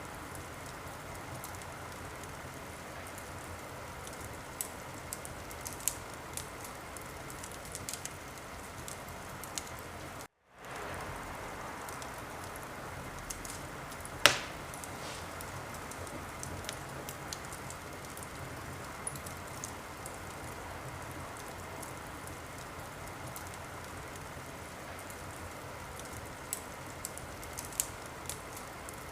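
Wood fire crackling in a fireplace: a steady hiss with scattered sharp pops and snaps, one louder pop about halfway through. The sound cuts out briefly about a third of the way in.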